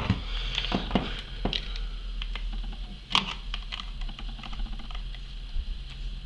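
Scattered clicks and taps of a Phillips screwdriver and small metal parts of a WE 1911 CO2 airsoft pistol being handled while a screw by the hammer is worked out, with a sharper knock at the start and another about three seconds in.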